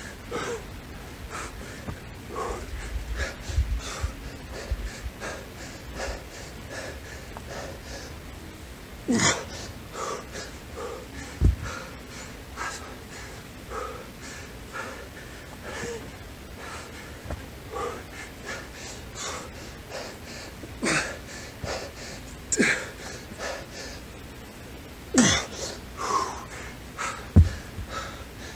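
A man panting hard and wheezing in quick, repeated breaths, about two a second, with several louder gasps: winded after an exhausting set of dumbbell burpees, presses and lunges. A couple of dull thumps.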